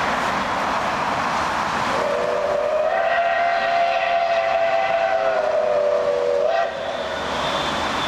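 Steam whistle of the Soviet L-class steam locomotive L-5248: one long blast of several tones together, starting about two seconds in and lasting about four and a half seconds. Its pitch dips slightly near the end before it cuts off. A steady noise of road traffic and the working train runs underneath.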